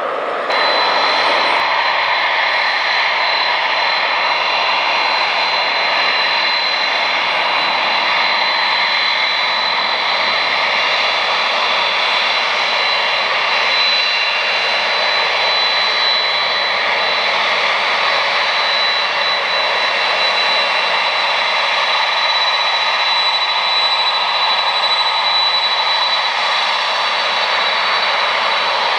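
JAL Boeing 767 taxiing on its two turbofan engines at low power: a steady jet whine with a high, held tone over a rushing hiss. It steps up in loudness about half a second in, then holds.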